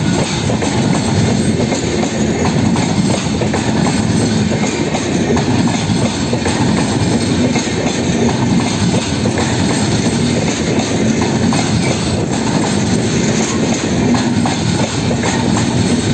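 Express-train passenger coaches rolling past at close range: a steady, loud rumble of wheels on the track with a dense run of clicks and clatter.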